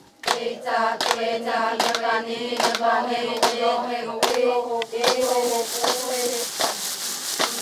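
A group of women chanting together on a steady, droning held pitch, over a regular percussive beat about two to three times a second. The chant breaks off briefly near the end and then resumes.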